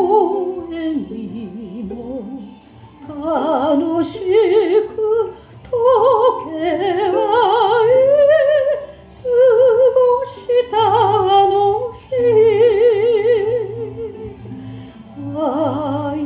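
A woman singing a slow ballad with a strong, wide vibrato, in phrases with short breaks, to her own strummed ukulele accompaniment.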